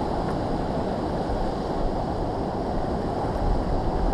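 Fast, choppy river current rushing steadily, with wind noise on the microphone.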